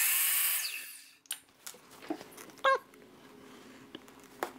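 A hiss that fades out about a second in, then quiet handling clicks and a short squeak as wood glue is squeezed from a plastic bottle onto the mitred edge of the shelf's trim.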